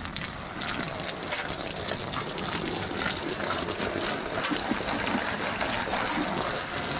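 A steady gush of water washing down an enclosure and splashing onto its fabric.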